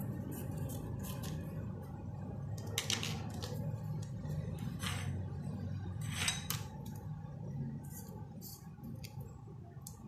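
Scissors cutting through cloth in a few short snips, then the cut fabric strip handled on a tabletop, with a steady low hum underneath.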